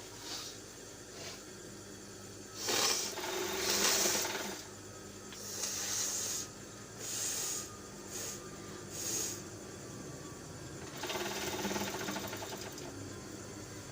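A person forcefully blowing air out through the nose several times. There is a long blow about three seconds in and another near the end, with shorter hissy puffs between them.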